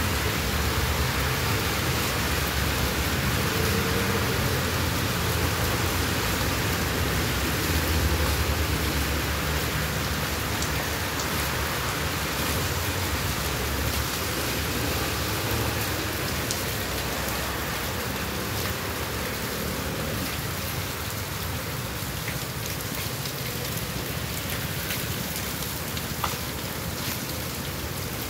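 Heavy rain pouring onto a paved street and parked cars, a steady dense hiss of drops. A low rumble beneath it eases about two-thirds of the way through.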